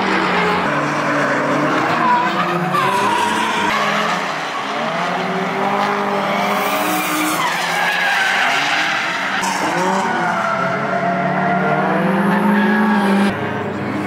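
Several drift cars' engines revving up and down at once as the cars slide around the track, over the hiss of skidding tyres. The sound changes abruptly near the end.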